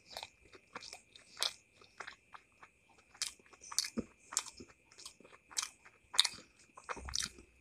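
A person chewing a mouthful of steamed chicken taifu dumpling with chutney, close to the microphone: irregular short chewing clicks and crunches, two or three a second.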